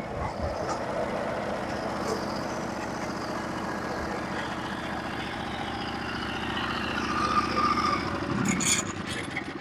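Norwood HD36v2 portable bandsaw mill running steadily, its engine and band blade going without a break, with a slight change in tone over the last couple of seconds.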